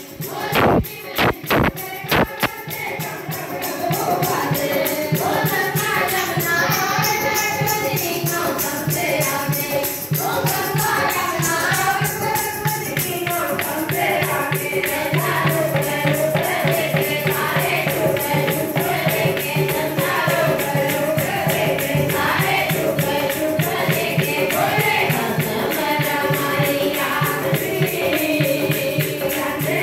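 A group of women singing a Hindu devotional kirtan together over a fast beat of jingling hand percussion. A few loud knocks sound in the first couple of seconds.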